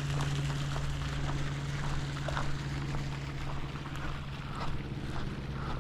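A motor running steadily at one constant low pitch, with a few light clicks and knocks over it.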